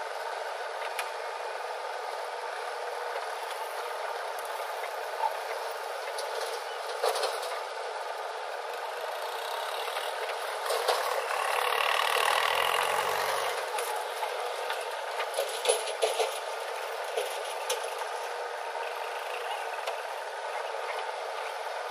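Diesel engine of a JCB 3DX backhoe loader running steadily as the backhoe arm works. The engine swells louder for about three seconds near the middle, with a few sharp metallic clanks and rattles scattered through.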